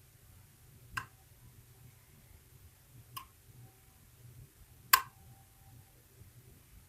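Three sharp clicks from a KeyMark lock cylinder being worked with picks: one about a second in, one a little after three seconds, and the loudest near five seconds, each trailed by a faint short ring.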